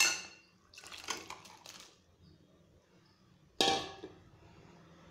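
A steel ladle clinks sharply against a metal kadai with a brief ringing, followed by a few light scrapes of stirring in the sambar. About three and a half seconds in there is a sudden wet slop as cooked cabbage and dal are tipped into the simmering sambar.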